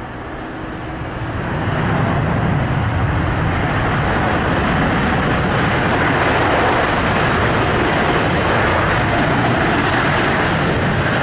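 Boeing 777 landing, its twin jet engines making a loud, steady rushing noise that swells over the first two seconds and then holds.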